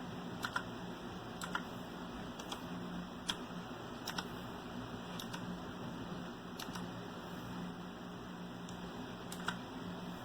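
Single keys being pressed one at a time on an RK Royal Kludge S108 mechanical keyboard with blue switches: sharp, irregularly spaced clicks, roughly one a second, over a steady low hum.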